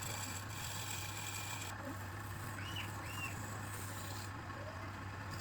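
A steady low electric hum under a hiss, with two short chirps about halfway through.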